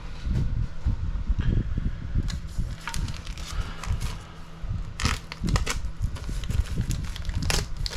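Plastic kit parts bags crinkling and hard plastic RC car parts being handled and set down, with irregular low bumps and sharp crackles, the loudest about five seconds in and again near the end.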